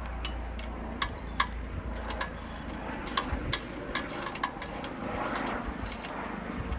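Socket wrench clicking against the nuts of a Vermeer RTX 250 trencher's chain adjuster as the adjuster is worked on the second side: a string of sharp, irregular metal clicks over a steady low hum.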